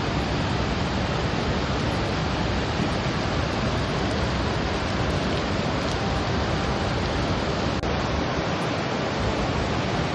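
Steady, loud rushing of water, an even roar with no pitch or rhythm, briefly dipping about eight seconds in.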